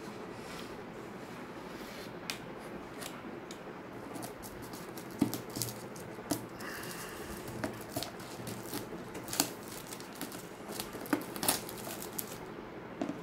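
Clear plastic shrink wrap being picked at, torn and peeled off a cardboard box, giving scattered sharp crinkles and rustles that come thicker in the second half.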